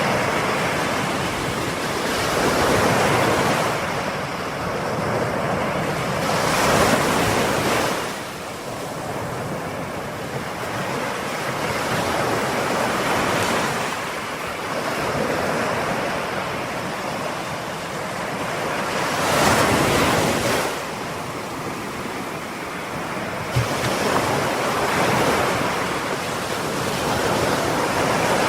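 Ocean waves breaking and washing onto the shore in repeated surges every few seconds, a steady rushing hiss between them. Some wind on the microphone.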